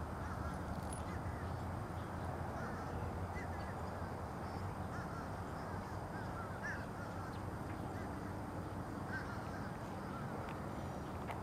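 A flock of white ibises giving scattered short, nasal calls over a steady low background rush.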